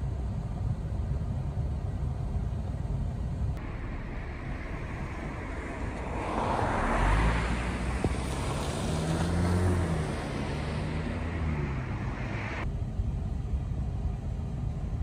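A car drives past on the street: tyre and engine noise swells and fades over several seconds, loudest in the middle, and the engine note rises and then falls in pitch as it passes. A steady low rumble lies under it.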